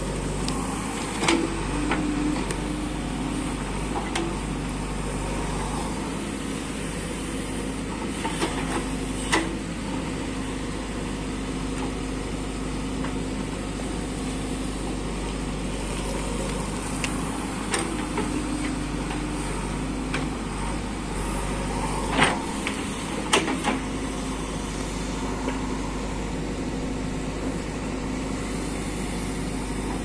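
JCB 3DX backhoe loader's diesel engine running steadily while the backhoe arm digs and dumps soil, with a few sharp knocks scattered through.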